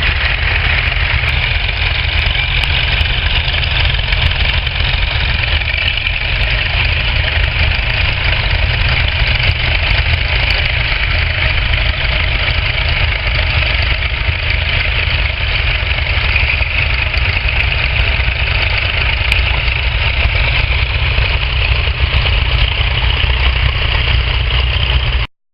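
Vintage tractor engines running steadily with a deep rumble, then cutting off suddenly near the end.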